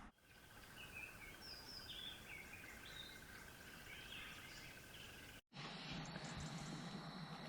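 Faint birdsong: short chirps from small birds over a low steady background hiss. It stops abruptly with a cut about five seconds in, and a different steady hiss follows.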